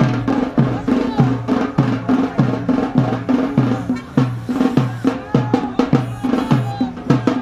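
Yemeni bara'a drumming: a steady, driving pattern of deep drum strokes that each fall in pitch, with sharp high cracks from a smaller drum between them.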